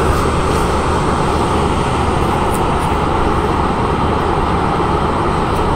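Lakewood squirrel-cage window fan running: a steady rush of air over a low hum.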